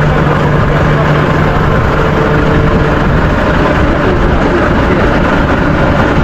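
Heavy truck's diesel engine idling steadily close by: a Volvo FH16 750 with its 16-litre six-cylinder.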